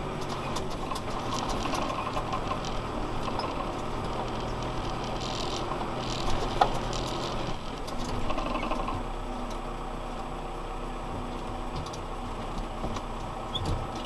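Valtra N91 tractor's diesel engine running steadily, heard from inside the cab, with scattered clicks and rattles from the cab and its controls and one sharper click about six and a half seconds in.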